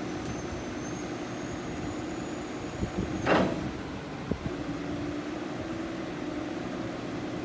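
Chainsaw engine running steadily. About three seconds in there is a short, loud rushing noise, and about a second later a sharp knock.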